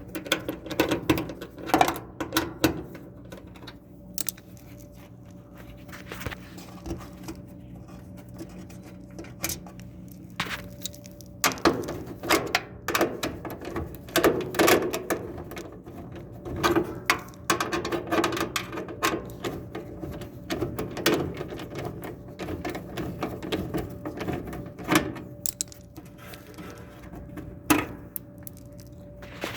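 Irregular clicks, knocks and light metallic rattles of hand tools, screws and sheet-metal parts being handled while a clothes dryer is taken apart, over a steady low hum.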